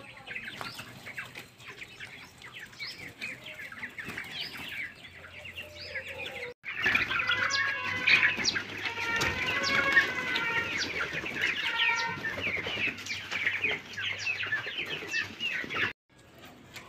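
A flock of desi (native) chicken pullets clucking and chirping, many birds calling over one another. The calling grows louder and busier after a short break in the sound about six and a half seconds in, and breaks off again briefly near the end.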